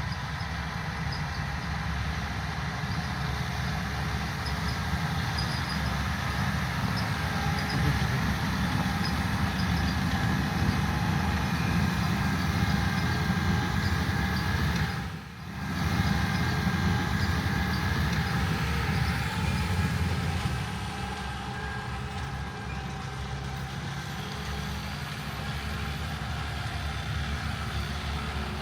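Farm tractor diesel engine running steadily under load while pulling a rye merger. The sound drops out briefly about halfway through and runs a little quieter and more even in the last third.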